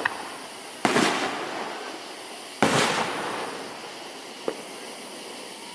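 Aerial fireworks shells bursting: two loud bangs about two seconds apart, each trailing off over a second or more, then a faint single pop.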